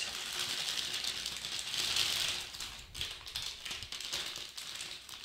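Clear plastic wrap crinkling and rustling as it is handled and pulled around a telescope tube, louder for the first couple of seconds, then fainter with a few small clicks.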